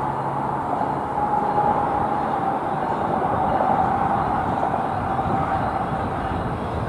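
A train approaching the station platform, a steady rumble with a faint steady whine.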